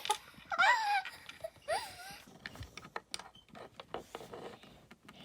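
A young child's two short high-pitched vocal squeals, followed by a run of light clicks and knocks, like small plastic toys being handled.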